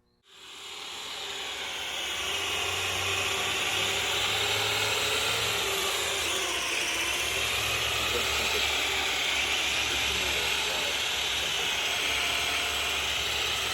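Modovolo Lift multirotor drone's motors and propellers starting up and running, a dense steady whirring hiss with a low hum underneath that builds over the first two seconds and then holds.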